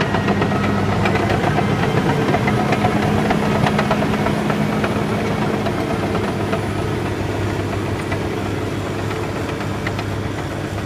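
2008 Caterpillar D7R Series 2 bulldozer's diesel engine running steadily under load as it rips soil, with the steel tracks clanking and rattling. The sound grows a little fainter over the last few seconds as the dozer moves away.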